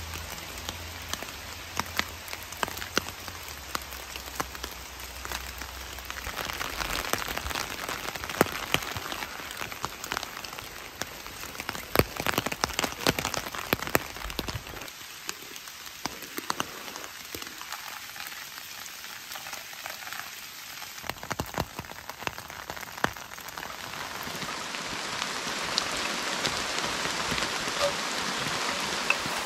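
Steady rain falling, with many sharp hits of single drops. Near the end it gives way to the steady rush of a stream.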